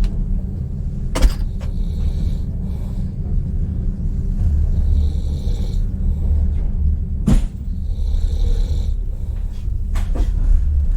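A sleeping passenger snoring in a railway sleeper carriage, one snoring breath about every three and a half seconds, over the steady low rumble of the running train. Two sharp knocks cut through, one about a second in and a louder one a little past halfway.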